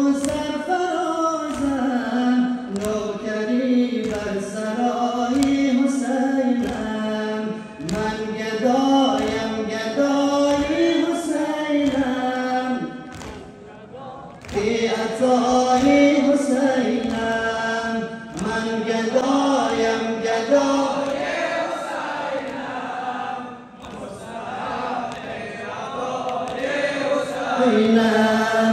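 Group of mourners chanting a Shia Muharram noha in unison, dropping out briefly twice, over steady thumps about twice a second typical of sineh-zani chest-beating.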